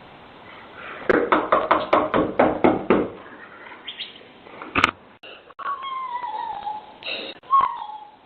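Rapid knocking on a front door, about nine knocks in two seconds, then one more hard knock, heard through a Ring video doorbell's microphone. A high, wavering cry follows near the end.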